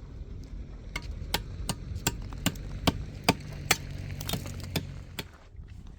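A run of about eleven sharp blows, roughly two or three a second, struck in quick succession like hammering. A low steady hum runs beneath them and stops with the last blow, about five seconds in.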